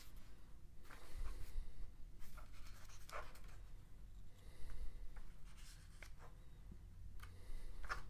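Paper pages of a small booklet being turned by hand: a few soft rustles spaced a couple of seconds apart.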